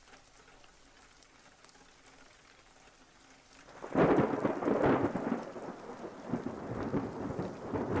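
A few seconds of near silence, then a rolling thunder rumble with rain that swells suddenly about four seconds in and carries on more quietly. This is a storm sound effect used as a break between stories.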